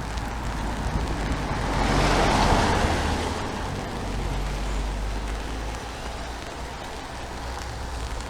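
A car passing on a wet road. Its tyre hiss swells to a peak about two to three seconds in and then fades, over a steady low traffic rumble.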